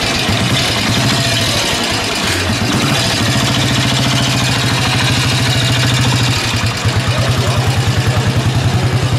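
Sanglas motorcycle with sidecar, its engine idling and then pulling away at low speed. The exhaust beat turns into a pulsing throb over the last couple of seconds.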